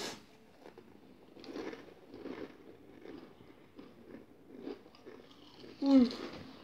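Crisps being chewed: quiet, irregular crunching from mouthfuls of crisps.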